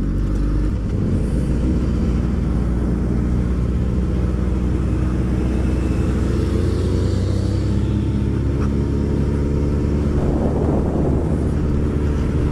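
Motorcycle engines running steadily at riding speed, a Kawasaki ZZR1400 with an aftermarket exhaust among them, over a rush of wind on the helmet microphone.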